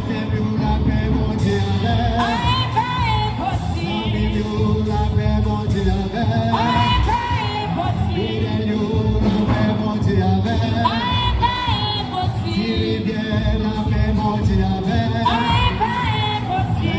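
A church hymn sung over a band with a steady beat and bass; the sung phrases recur about every four to five seconds, with wavering held notes.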